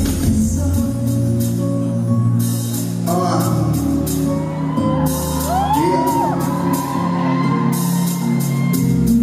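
Live pop concert music playing loudly in a large hall, with singing over the backing track and shouts from the audience.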